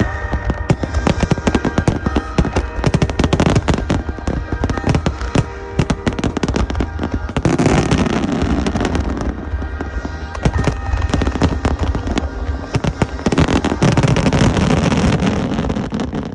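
Aerial fireworks in a dense barrage: rapid booms and crackling bursts, with two long spells of crackling about eight seconds in and again near the end, and music playing beneath.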